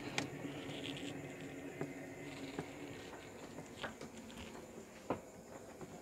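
Low, steady electrical hum of a running refrigerator, with a few faint clicks and taps.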